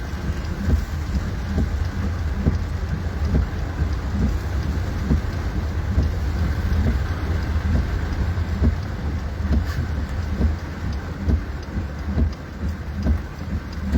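Steady heavy rain falling, with many small drop ticks, over a constant low rumble.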